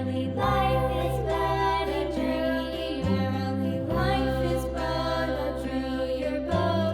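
Background music: a sung melody over sustained chords and a bass line that changes every few seconds.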